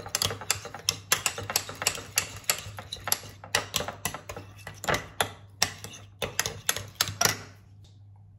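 A metal spoon stirring a thick chili sambal in a ceramic bowl, clinking against the bowl about four times a second. The clinks die away about a second before the end.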